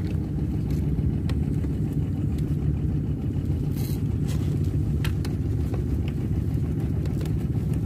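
Steady low drone of a boat engine running, with a few faint clicks over it.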